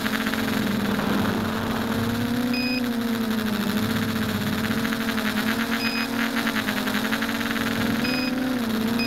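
Mini foam tricopter's electric motors and propellers whining steadily, heard from the onboard camera, the pitch dipping and rising a little with throttle. Three short high beeps come at intervals of a few seconds.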